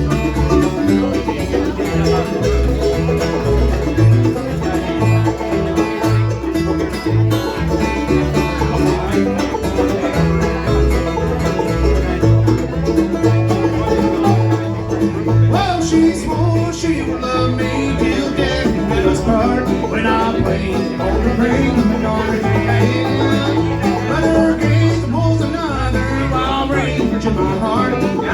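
Live band playing a song: plucked strings over a bass line that steps from note to note, with a wavering melody line coming in about halfway through.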